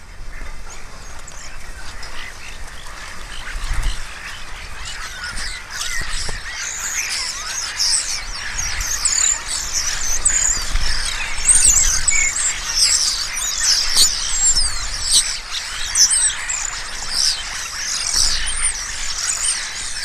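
A large flock of European starlings chattering and whistling together, a dense mass of squeaky, warbling calls that builds up louder after the first few seconds, with the whirr of wings as birds take off and land.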